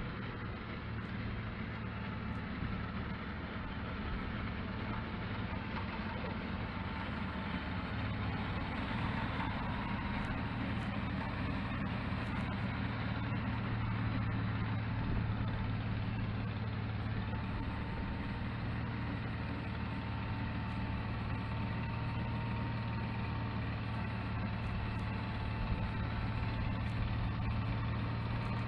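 Engine of a swather converted into a snowblower, running steadily, with a thin whine over it.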